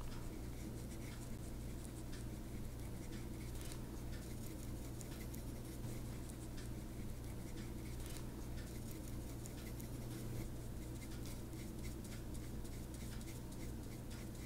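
Faint, soft scratchy strokes of a damp flat paintbrush on paper as it moves water-soluble pencil colour, over a steady low hum.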